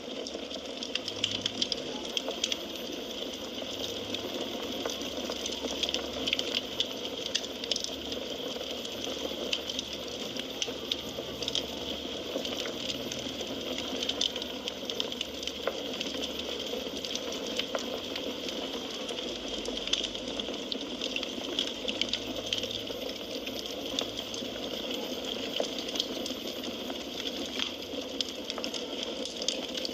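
Wood fire burning in a fireplace: a steady hiss and rustle of flames with frequent small crackles and pops from the burning logs.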